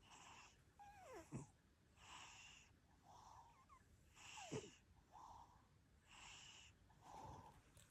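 A sleeping cat snoring softly, with wheezy breaths in and out about once a second. Twice a breath ends in a squeaky whistle that drops steeply in pitch.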